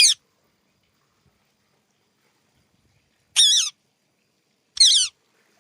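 Pet green parakeet giving three short, shrill calls with a wavering pitch: one right at the start, then two more about a second and a half apart near the end.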